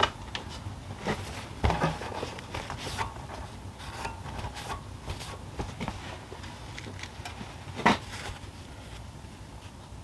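Scattered clicks and knocks of small parts and tools being handled on a workbench, the loudest about eight seconds in.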